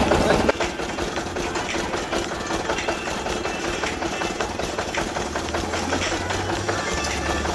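Sugarcane juice crusher running, its rollers squeezing cane with a rapid, steady mechanical clatter; a low hum comes in about halfway and grows stronger near the end.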